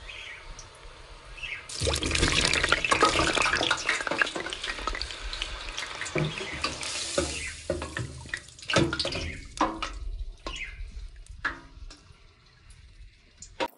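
Hot oil in a deep fryer sizzling around potato wedges. It starts as a light sizzle, then about two seconds in turns into a loud, dense crackling hiss as more wedges go in. It dies down over the next several seconds to scattered pops and crackles.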